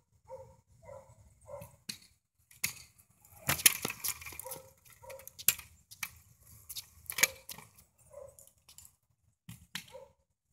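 Kick scooter rolling on a concrete driveway, its wheels and deck clattering with several sharp knocks and a longer rattling stretch a few seconds in. A short pitched call repeats about once a second in the background.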